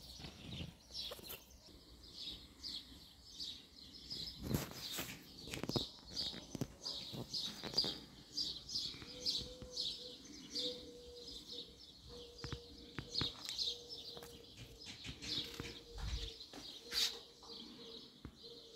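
A small bird chirping over and over, about two short chirps a second, with a few scattered soft knocks. A faint steady tone comes in about halfway.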